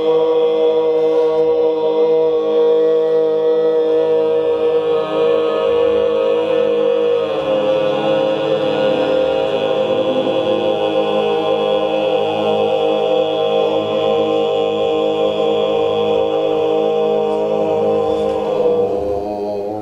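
A group of voices singing long held notes together, several pitches layered into a steady drone chord that shifts a little partway through and dies away at the very end.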